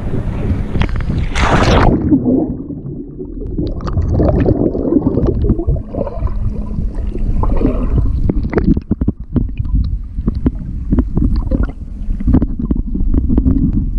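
A splash about a second and a half in as the microphone goes under the sea. Then muffled underwater gurgling and bubbling of churned sea water, with many short knocks and pops.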